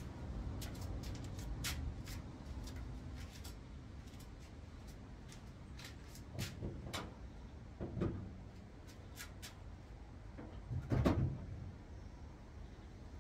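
Scattered light clicks and a few dull thumps over a low steady hum, the loudest thump about eleven seconds in.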